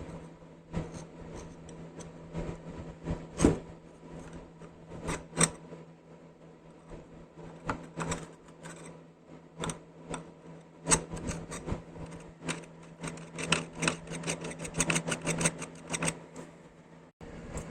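Sharp clicks and taps of hand work on small tool parts, scattered at first, then a quick run of many clicks a second in the second half, over a steady low hum.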